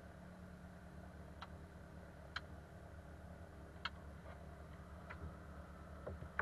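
About half a dozen sharp, irregularly spaced clicks as switches and controls on a light aircraft's cockpit panel are worked with the engine off, over a steady low hum.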